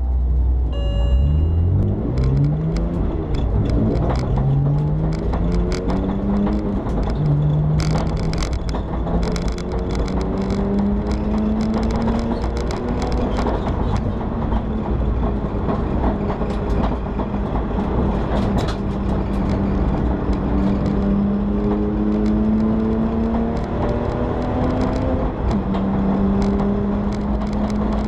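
BMW E90 325i race car's straight-six engine heard from inside the cabin, pulling hard through the gears: its pitch climbs, drops back at each upshift, and climbs again, with a long slow climb in the middle. Sharp clicks and rattles come through over the engine note.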